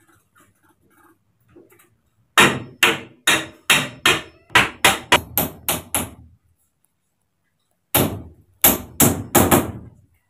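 A hammer striking a joint of green bamboo poles: a run of about eleven sharp blows that come faster toward the end, a pause of a couple of seconds, then about five more blows.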